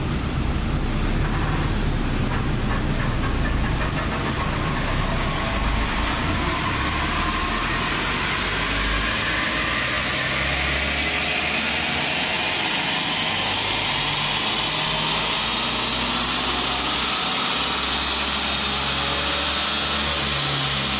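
Toyota Hilux 3.0 D-4D four-cylinder turbodiesel, fitted with a diesel-CNG dual-fuel kit, pulling under load on a chassis dynamometer as the revs climb from about 1,100 to 4,500 rpm. A whine rises steadily in pitch through the second half.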